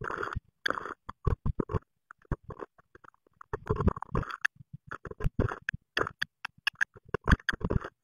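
A Eurasian blue tit scuffling, fluttering and bumping about inside a wooden nest box as it works moss nesting material. The sound comes in short, irregular bursts that start and stop abruptly, chopped up by the timelapse.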